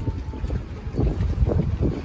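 Wind buffeting the microphone: an uneven, gusting low rumble.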